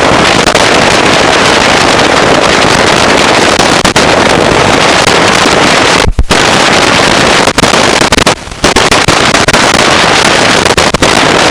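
Loud, steady cockpit noise in a taxiing Luscombe light aircraft: the engine and propeller at low power as a rushing noise through the intercom, cutting out briefly twice.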